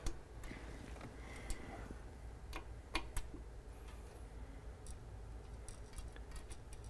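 Faint, sparse clicks and ticks of a small screw being turned in by hand at the rear corner of an espresso machine's stainless steel housing, with a quicker run of ticks near the end.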